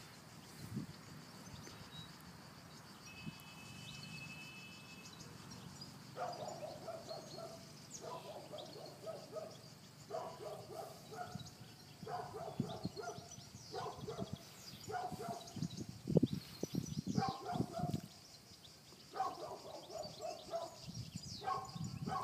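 An animal calling in repeated bursts of quick notes, one burst every second or two, starting about six seconds in.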